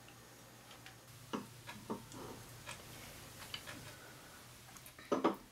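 Light, unevenly spaced clicks and taps of wine glasses and tableware being handled on a dinner table, over a faint low hum, with a louder short sound near the end.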